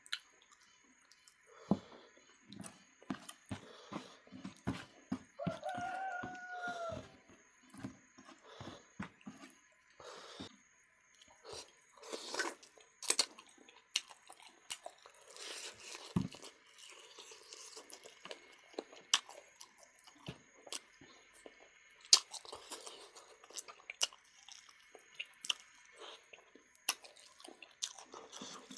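Close chewing and biting of duck meat, with irregular wet smacks, crunches and clicks. About six seconds in there is a short pitched sound that rises and falls.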